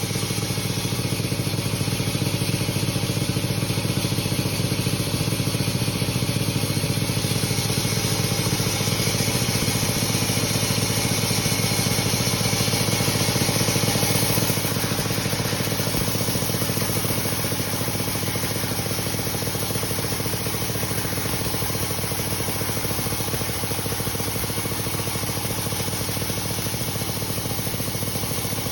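Sawmill machinery running steadily while sawing dry teak into boards, with a constant engine-like hum. A higher hiss grows louder partway in and drops off sharply about halfway through.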